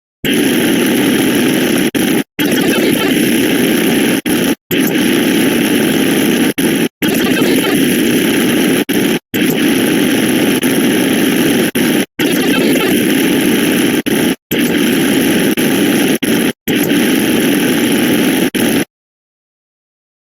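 A loud, harsh wall of many overlapping digital sound effects that merges into a steady noise. It is cut by short silent gaps about every two and a quarter seconds, and a longer silence falls near the end.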